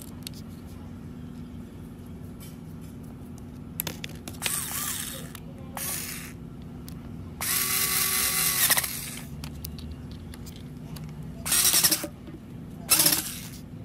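Cordless drill/driver running in about five short bursts, turning the screws on an angle grinder's gear housing; the longest burst, about a second, comes near the middle.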